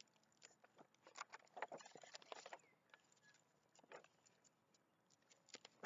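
Faint rustling and crackling of a large picture book's paper page being turned and handled, with scattered small clicks, busiest in the first half.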